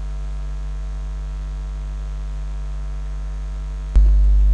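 Steady electrical mains hum picked up by the recording microphone, with a click about four seconds in after which the hum is louder.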